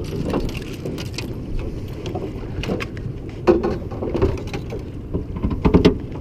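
Boat's motor idling in neutral as a steady low hum, with several sharp knocks and clatters on the boat.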